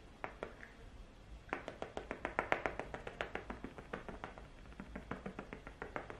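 Rapid soft patting on skin as foundation is dabbed in with a makeup puff and fingertips: a few separate taps, then from about a second and a half in a fast run of about six pats a second.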